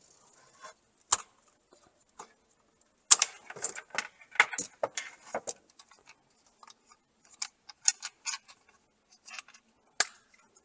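Wire cutters snipping through electrical wires for an outlet, with sharp clicks and light metallic clatter of the tool and wire ends being handled.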